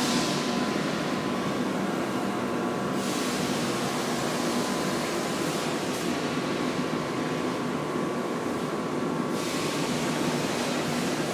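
Gas burner of a rotisserie BBQ smoker firing with a steady rushing hiss, over a faint steady hum. The hiss turns duller from about three seconds in and brightens again near the end.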